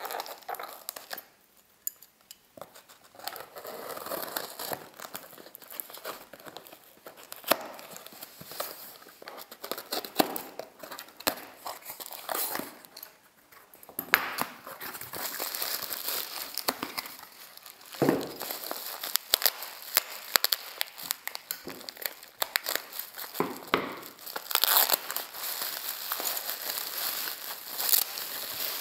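A cardboard parcel being opened by hand, then plastic bubble wrap crinkling and crackling as it is pulled open. Irregular rustles with many sharp clicks, with a couple of short lulls.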